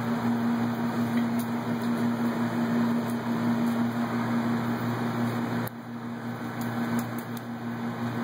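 Steady mechanical hum with a low drone and a wash of noise, easing a little about six seconds in; a few faint clicks.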